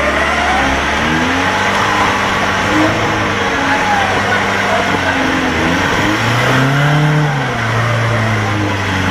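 A Suzuki 4x4's engine revving up and down as it crawls over rough ground off-road. Its pitch swells and falls repeatedly, with a strong rise and fall about two-thirds of the way through.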